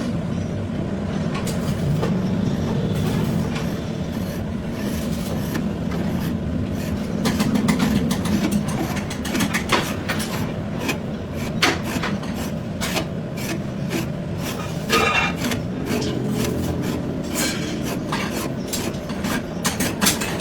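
A machine hums steadily and low while metal is worked, with frequent short knocks and scraping, and a thicker cluster of clicks about three-quarters of the way through.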